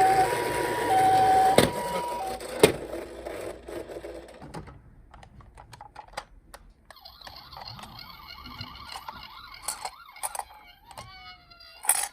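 Electronic sirens of toy ambulances: a two-tone hi-lo "pee-poh" siren, each tone held about half a second, stops a couple of seconds in, followed by a few sharp clicks. After a quieter stretch a fainter wavering siren starts, and near the end a wailing siren rises and falls, with a sharp click just before the end.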